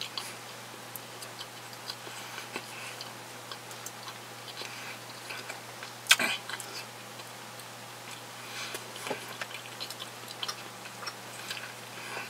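Close-miked chewing of a sausage-and-bread sandwich: irregular small wet clicks and smacks of the mouth, with one louder smack about six seconds in.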